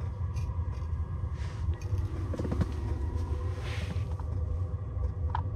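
Steady low rumble with a faint steady hum, overlaid by a few light clicks and rustles from handling an ice-fishing rod and tackle.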